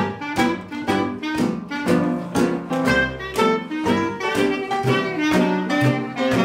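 Live acoustic jazz band playing an instrumental passage: clarinet carrying the melody over strummed acoustic guitar with a steady beat of about two strokes a second.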